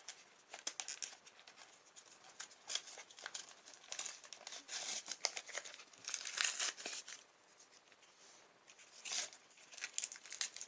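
Cardboard-and-plastic card blister pack being torn open and crinkled by hand, in irregular crackling bursts that come and go.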